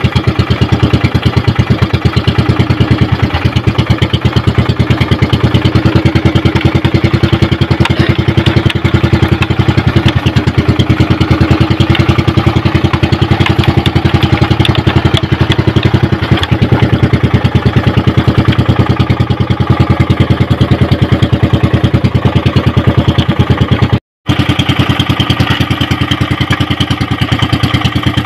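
Small engine of an outrigger fishing boat running steadily under way, a fast, even chugging with a steady hum, broken by a brief dropout near the end.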